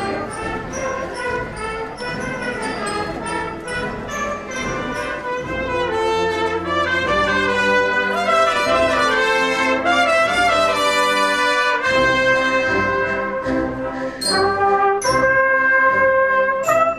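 Andalusian agrupación musical, a cornet, brass and drum marching band, playing a Holy Week procession march: a brass melody over a steady drum beat, getting louder about six seconds in.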